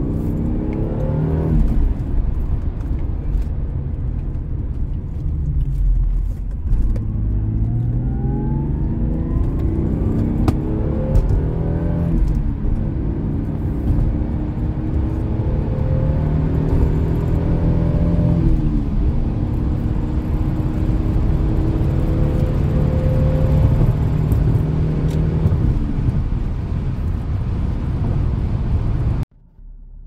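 Lexus SC300's 2JZ inline-six pulling hard through the gears, heard from inside the cabin. Its pitch climbs and drops back several times as it shifts up. The sound cuts off abruptly just before the end.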